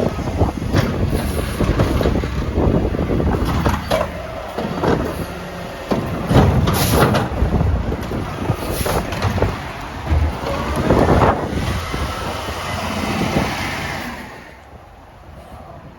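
Mack LR garbage truck with a McNeilus Meridian body and Curotto Can working a pickup: the diesel engine runs hard under hydraulic load, with repeated clanks and bangs and a whine that rises and falls. The noise drops off sharply near the end.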